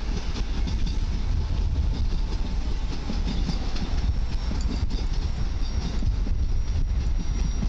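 Koleje Mazowieckie Stadler Flirt electric multiple unit running into the station, a steady rumble of the train on the rails.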